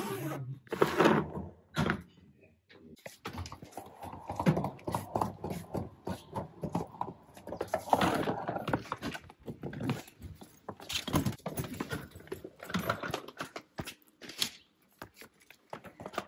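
Wheels of a hard-shell spinner suitcase rolling and rattling over floor tiles, making an uneven run of clicks and knocks as they cross the tile joints, with heavier knocks as the case goes down the steps.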